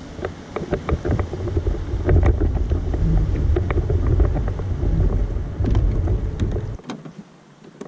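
Low, loud rumble of wind buffeting the microphone, with scattered knocks and clicks in the boat. The rumble cuts off suddenly near the end.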